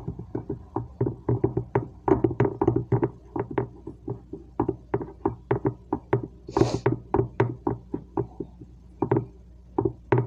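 Metal cupcake pan knocking and rattling against a tiled countertop as fingers press crescent dough into its cups: irregular taps, about three a second.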